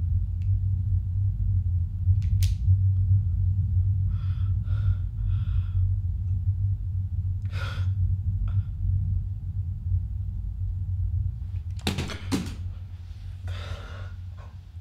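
A low rumbling drone runs under a woman's shaky, sobbing breaths. About 12 seconds in, two sudden sharp sounds come close together and she gasps.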